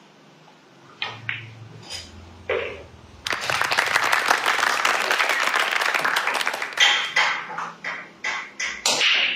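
A few sharp clicks of pool balls, then about three seconds in a burst of clapping that lasts some three seconds, followed by scattered sharp clacks of pool balls as the balls are gathered and racked.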